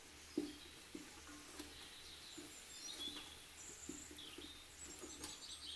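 Wooden spatula stirring a thick masala in a rice cooker's metal inner pot: faint soft knocks and scrapes every half second or so, the first the loudest. Birds chirp faintly in the background.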